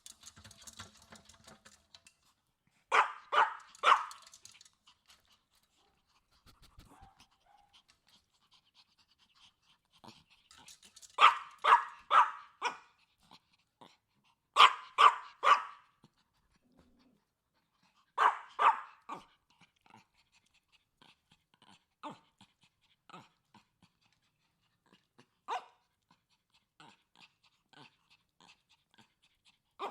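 Chihuahua barking in high, sharp yaps that come in bunches of two to four, several seconds apart, with fainter single yaps toward the end.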